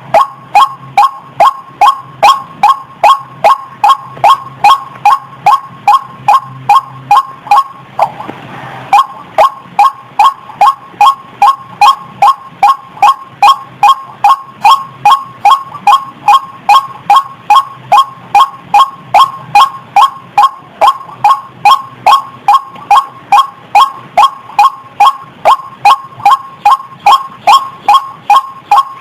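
White-breasted waterhen (ruak-ruak) calling, a loud call note repeated evenly about twice a second, from a lure recording made to attract waterhens. The calling breaks off for about a second some eight seconds in, then resumes.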